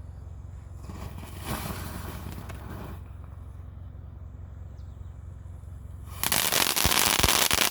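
Small consumer ground fireworks going off. A crackling hiss starts about a second in and fades out, then a much louder dense crackle starts about six seconds in and cuts off abruptly near the end.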